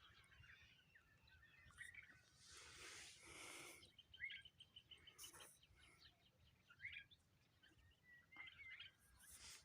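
Faint birdsong from several birds: scattered short chirps and whistles, with a rapid even trill about four seconds in. A brief swell of hiss runs under it a couple of seconds in.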